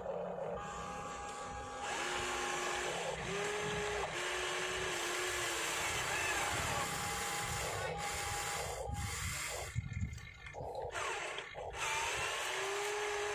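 Huina RC toy excavator's electric motors whining as it slews round and raises its boom and bucket. The whine comes in runs of a second or a few seconds, stepping in pitch from one movement to the next, with a short pause and a click about ten seconds in.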